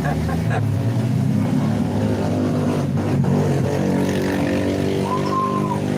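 Bus engine running steadily close by, with a short high held tone about five seconds in.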